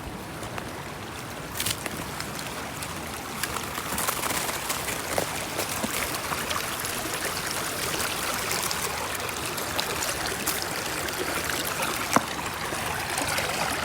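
Running stream water, a steady rush that grows louder about four seconds in, with a few sharp clicks scattered through it.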